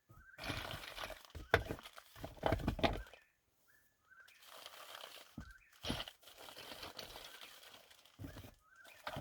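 Rustling and crinkling of things being rummaged through and handled, loudest in the first three seconds. In the background a bird repeats a short rising call note every second or so.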